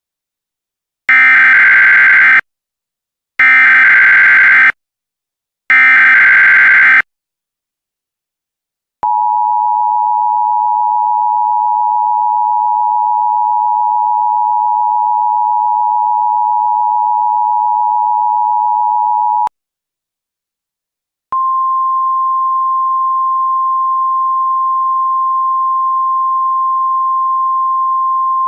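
Emergency Alert System tones: three short bursts of SAME header data, then the two-tone attention signal held for about ten seconds. After a short gap comes a steady single higher alert tone.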